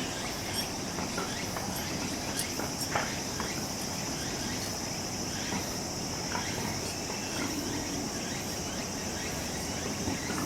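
Steady high-pitched chorus of singing insects, with faint short chirps scattered through it.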